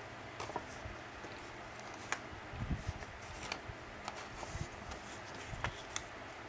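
Cardstock pieces being picked up, handled and set down on a craft work mat: light paper rustles and scattered taps, with a few soft thumps.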